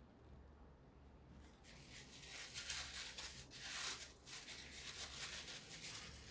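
Scratchy rubbing in quick irregular strokes, starting about a second and a half in, as paint is worked onto a small 3D-printed plastic letter held in the hand. A faint steady hum sits underneath.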